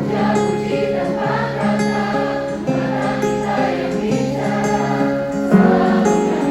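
Live band playing a slow ballad, with many voices singing along.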